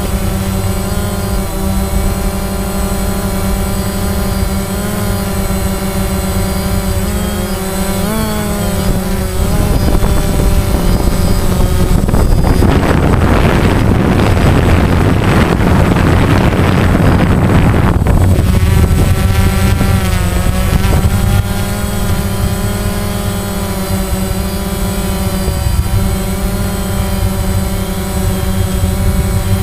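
DJI Phantom quadcopter's four electric motors and propellers whining steadily, heard from a camera mounted on the drone itself, their pitch sliding up and down as it manoeuvres around 8 seconds in and again around 20 seconds in. From about 12 to 18 seconds in, a loud rushing noise covers the motor whine.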